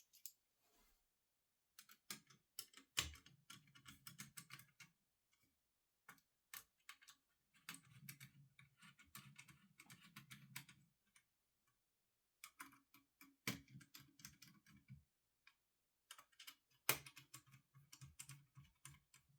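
Screws on a GTX 980 Ti graphics card being tightened down with a hand driver: faint runs of quick small clicks and scraping in four spells with short pauses, plus a few sharper single clicks.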